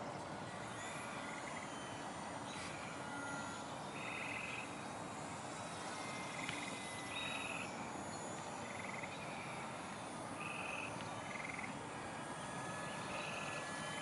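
Frogs calling: short trills, one every second or two, over a steady background hiss.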